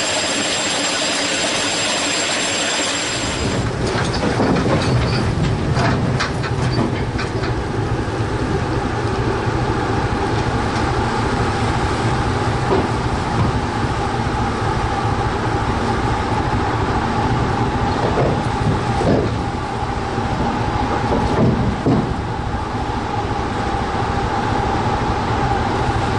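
A ship's diesel engine room hissing and humming for about three seconds, then cutting to the trawler's deck: a steady engine rumble and churning water, with metal clanks and a few short squeals from the chains and trawl doors of the fishing gear.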